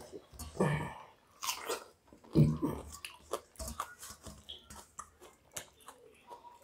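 Close-up eating sounds: wet chewing of rice soaked in water, eaten by hand, and slurps of the rice water drunk straight from a steel plate, with small clicks between. The loudest slurp or gulp comes about two and a half seconds in.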